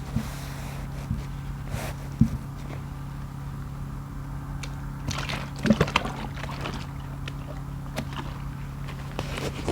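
Wet grout sponges being squeezed and worked in soapy water, with squishing and dripping and a cluster of crackly squelches about five to six seconds in.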